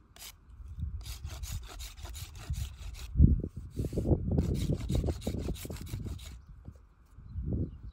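Wooden arrow shaft being scraped with a small hand tool in quick repeated strokes, with a heavier thump about three seconds in.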